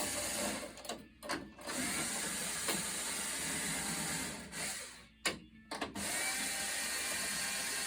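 Drum shell's bearing edge scraping steadily as it is turned against a flat surface to check it for level, stopping twice briefly as it is repositioned, with a small knock about five seconds in.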